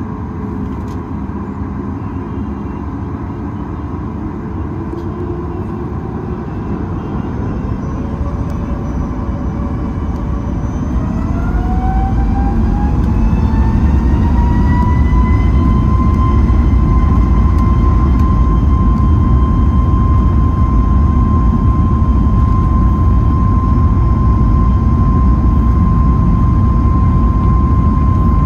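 Boeing 737 MAX 9's CFM LEAP-1B turbofan, heard from inside the cabin, spooling up to takeoff thrust. A whine rises in pitch and grows louder from about a third of the way in, then holds steady over a deep rumble as the takeoff roll gets under way.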